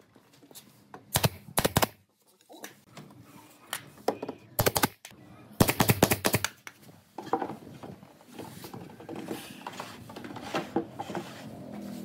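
Pneumatic brad nailer firing nails into pine boards: sharp shots in quick pairs about a second in, one near five seconds, and a fast run of about five shots around six seconds in. After that come lighter knocks of wood being handled.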